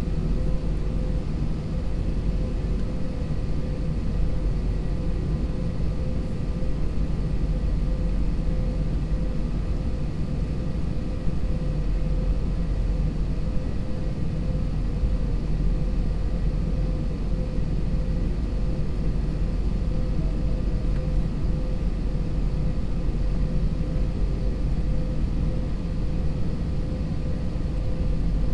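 Airbus A320's jet engines at idle before the takeoff roll, heard inside the cabin: a steady low rumble with a few steady whining tones above it.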